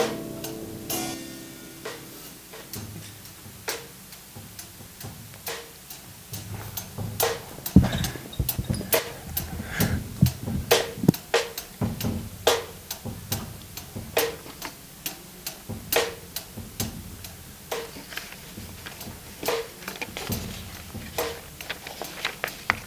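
Drum kit playing softly at the start of a worship song. Sharp stick clicks land every couple of seconds, and about eight seconds in a busier beat takes over, with low drum hits.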